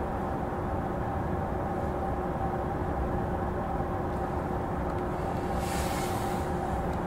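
JR E233 series electric train standing at a station, its onboard equipment giving a steady hum with two held tones over a low rumble. A brief hiss comes in about six seconds in.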